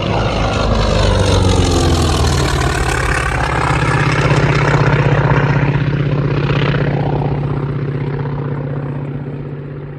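Propeller airplane engine passing by, its pitch sliding down early on as it goes past and the sound then fading away gradually.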